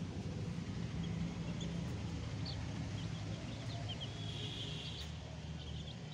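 A young chick peeping faintly in short, high notes, scattered and with a quick run near the end, over a steady low rumble.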